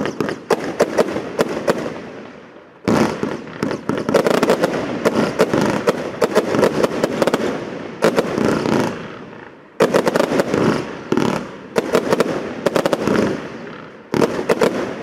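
Firework combination cake ('The Chosen One' combibox) firing: rapid volleys of sharp bangs and crackling aerial bursts. The salvos come in waves, with short lulls before fresh volleys about three, eight, ten and fourteen seconds in.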